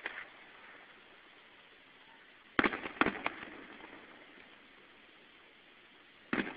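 Distant aerial fireworks bursting: three sharp bangs in quick succession about two and a half seconds in, each fading away, then another group of bangs near the end.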